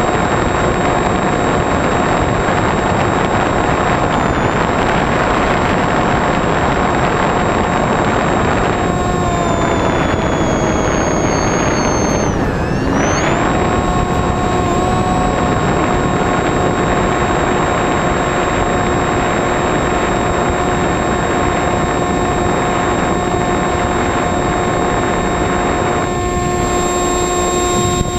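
RC flying wing's motor and propeller heard from the onboard camera: a steady whine over a loud rush of air. The pitch sags from about a third of the way in, drops sharply and briefly near the middle as the throttle comes back, then returns to its cruising pitch.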